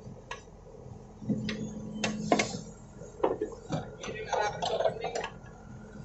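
Case 580L backhoe digging stony soil: the steel bucket knocks and scrapes against rocks in a string of sharp clanks, busiest in the second half, over the steady hum of the machine running.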